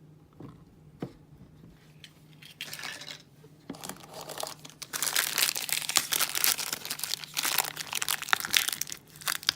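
A toy blind bag's plastic wrapper being torn open and crinkled by hand. A few light taps come first, then the crinkling grows dense and loud from about four seconds in.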